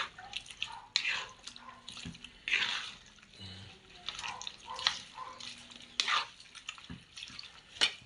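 Raw pork being mixed in its liquid marinade: irregular wet splashes and sloshes, each starting sharply.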